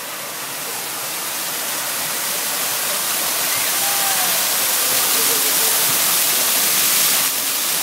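Interactive fountain's ground-level water jets splashing down onto wet paving: a steady rushing hiss that grows gradually louder, dipping slightly near the end.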